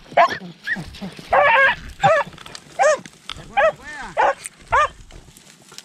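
Beagles baying on the hunt, a string of short, arching yelps about every half second to second, with one longer cry about a second and a half in. This is the hounds giving tongue as they work the rabbit's scent.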